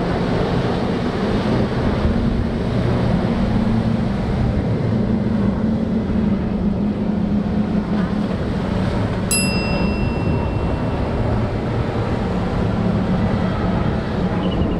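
Five Mercury 400 outboard engines on a Scout 53 LXF running at speed: a steady low engine drone over the rush of spray from the hull, with wind on the microphone.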